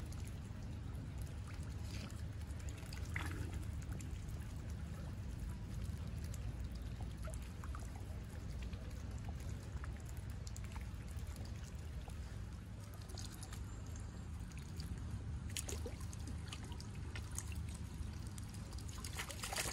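Mute swans dipping their heads and bills into shallow lake water to feed: light splashing, trickling and dripping water, over a steady low rumble, with a louder click near the end.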